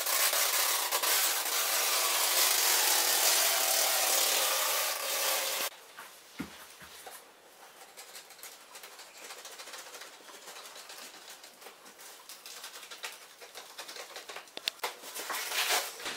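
Steady rubbing noise that cuts off abruptly about five and a half seconds in, then quieter rustling, scraping and light knocks as a large cardboard package in plastic wrap is handled.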